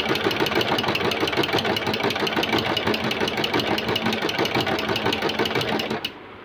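Usha Janome Allure DLX electric sewing machine stitching at speed with a ruffler foot attached, a fast even mechanical clatter of needle and ruffler blade, gathering the fabric into a pleat every six stitches. It stops suddenly about six seconds in.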